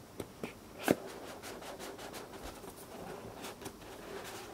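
Small cardboard box and its paper sleeve being handled on a work mat: soft rubbing and rustling with a few light taps, one sharper tap about a second in.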